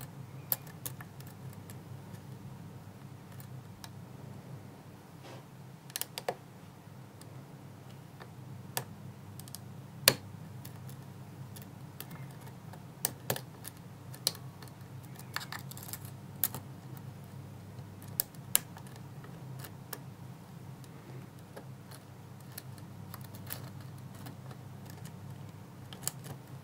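Light, irregular clicks and ticks of a lock pick working the spool pins of a six-pin Trioving switch lock held in a false set under tension, over a steady low hum.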